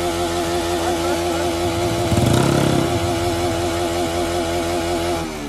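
Motorcycle engine held at high, steady revs while its rear tyre spins in a burnout, with a louder surge a little over two seconds in.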